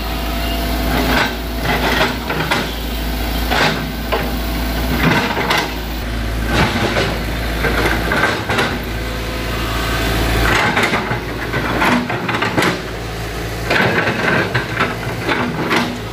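Hitachi excavator's diesel engine running while its bucket digs at an uprooted oil palm stump and its roots, with many irregular knocks and cracks of wood and steel.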